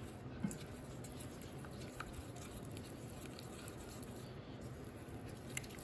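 Orange silicone spatula stirring and scraping a thick flour-and-chicken-fat roux in a stainless steel pan: faint soft scraping with a few light taps, over a steady low hum.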